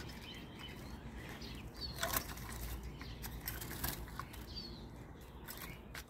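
Common starling caught in a wooden trap cage, fluttering its wings in a couple of brief bursts, about two seconds in and again near four seconds, with a few faint bird chirps.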